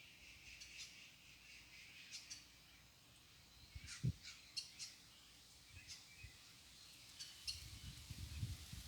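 Faint, short bird chirps scattered through, with a single soft low thump about four seconds in.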